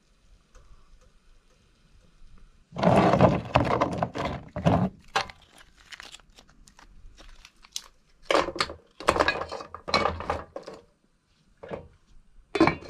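Rough oyster shells clattering and knocking against each other and against an enamel pot as they are handled and put into it, with the clank of the pot's metal lid. Quiet at first, then irregular bursts of knocks and crunches that come and go.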